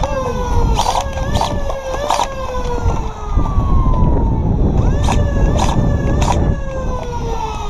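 A siren wailing down: its pitch falls slowly over a few seconds, rises again about halfway through and falls once more. Sharp clicks sound over it, a few in the first two seconds and a few more around five to six seconds in.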